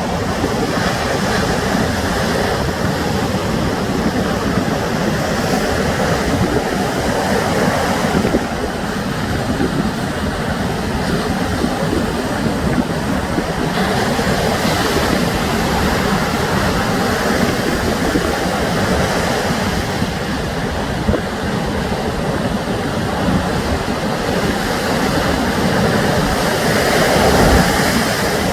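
Sea surf: a steady rush of waves breaking and washing on the shore, swelling near the end.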